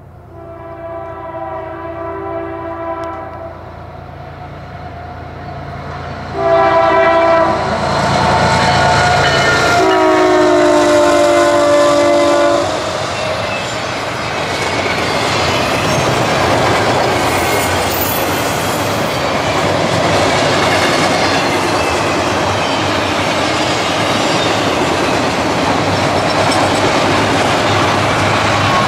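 A Kansas City Southern diesel locomotive's air horn sounds three blasts for a grade crossing. The last one is lower in pitch as the locomotive passes. A long double-stack container freight train then rolls by, with a steady rumble and wheels clattering over the rail joints.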